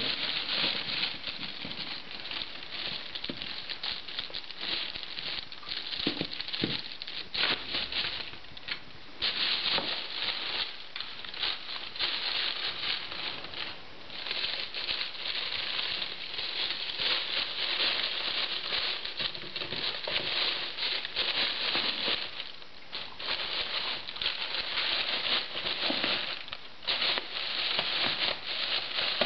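Cellophane gift wrap crinkling and rustling almost without a break as an Old English Sheepdog noses and paws at it, with a few short lulls.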